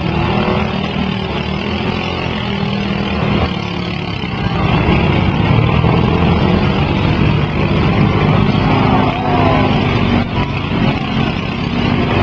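Several riding lawn mower engines running and revving together in a dense, steady din.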